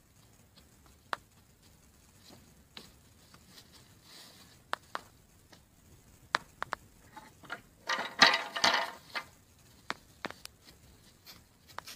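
Donkey hooves stepping through dry fallen leaves and twigs: scattered crackles and clicks, with a louder, denser spell of rustling and crunching about eight seconds in.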